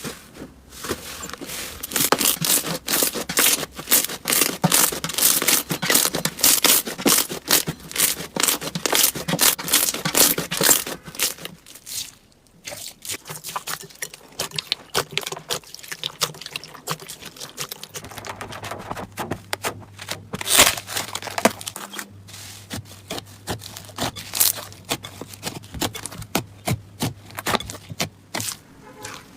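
Slime being squeezed and pressed by hand, giving fast crackling, popping clicks. The crackling is densest in the first half, thins out about twelve seconds in, and later continues more sparsely over a low steady hum.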